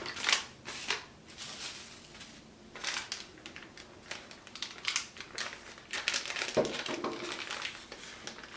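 Plastic packaging bags crinkling and rustling in irregular bursts as they are handled.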